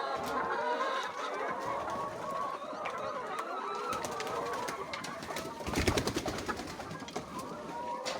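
A flock of layer hens clucking and calling over one another. About six seconds in, a brief burst of clattering sounds over the flock.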